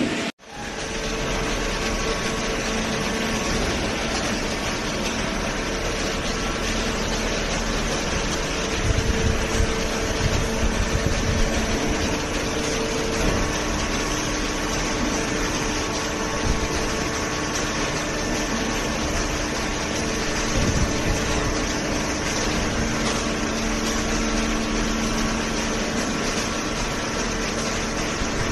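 Hydraulic cardboard baler running: the steady hum of its motor and hydraulic pump with a few held tones, and some louder low surges about a third of the way in and again about two-thirds through.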